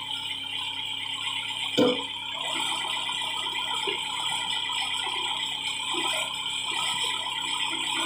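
An old tractor-type backhoe loader working its backhoe arm: the machine runs steadily with a high continuous whine, and there is a loud metal clunk about two seconds in, followed by lighter clanks and rattles as the boom and bucket move.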